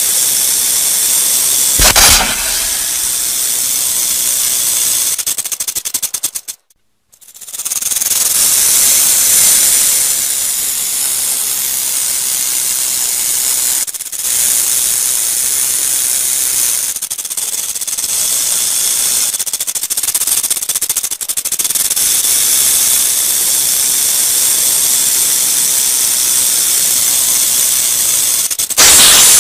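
A rattlesnake shaking its tail rattle in a continuous dry buzz, the snake's warning signal. The buzz surges louder about two seconds in, breaks off for about a second around seven seconds in, then resumes and surges again near the end.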